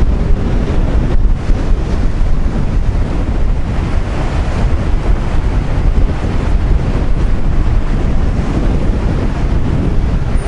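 Strong wind buffeting the microphone in a storm, with the rush of surf underneath; the roar is loud and steady.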